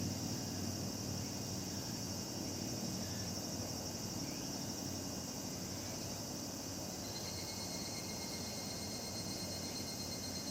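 Higurashi (evening cicadas) and other cicadas singing in a steady chorus over a low rumble, with a higher trilling call joining about seven seconds in.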